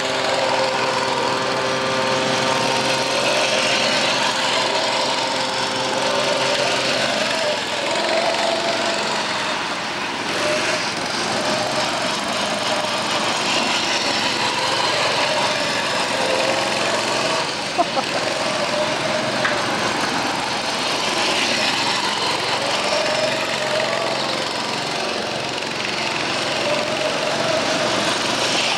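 Small go-kart engines running as karts lap a track. The pitch holds steady at first, then rises and falls over and over as the karts speed up and slow through the turns. A single sharp knock comes partway through.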